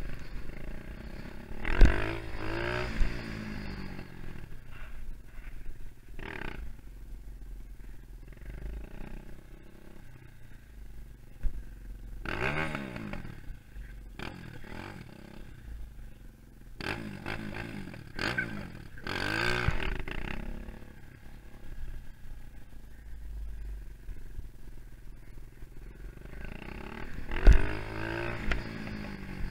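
250cc four-stroke dirt bike engine revving up and down in several bursts, settling back to a lower steady run in between. A few sharp knocks stand out, loudest about two seconds in and near the end.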